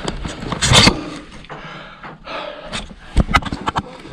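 Knocks, clicks and scrapes of a person climbing a wooden ladder with rope handrails, hands and body rubbing against the wooden rungs, rope and rock. A loud scraping burst comes just before one second in, and a sharp knock a little after three seconds.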